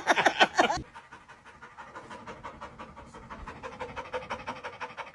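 Dog panting fast and steadily, quieter than the short wavering, pitched call that ends about a second in.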